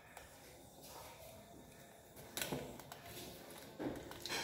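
Quiet room with two faint, short knocks, about two and a half and four seconds in, from small objects being handled on a table.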